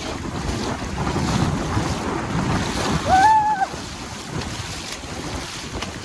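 Wind buffeting the microphone over the wash of sea waves, with a short pitched call rising, holding, then dropping about three seconds in.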